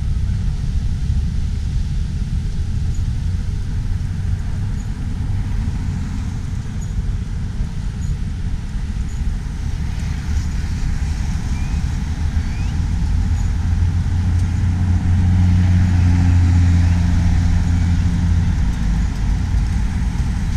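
Street traffic going by, with one vehicle's engine hum coming close and loud about three-quarters of the way through, then easing off near the end.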